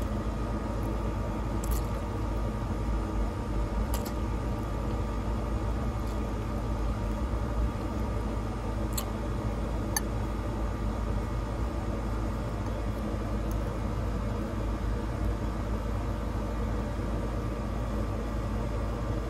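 Steady mechanical hum with a few faint short clicks scattered through it.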